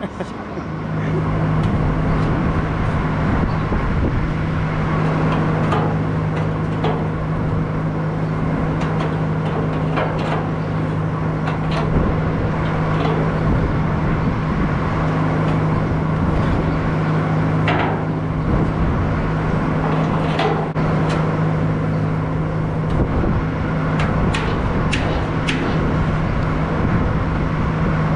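Skid steer engine running at a steady speed, with scattered sharp metal clanks and knocks from work on a barn fan mount.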